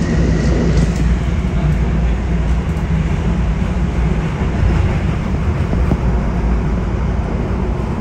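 Miami Metrorail train running, heard from inside the car as it pulls out of the station: a loud, steady low rumble with wheel and track noise.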